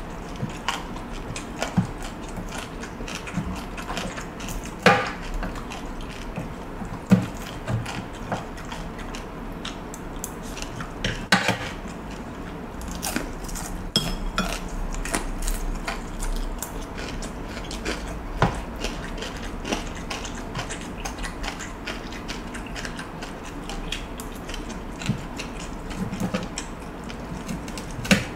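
Eating sounds: chewing crispy fried fish and rice, with scattered sharp clicks and scrapes of a metal fork and spoon against the plate and sauce dish.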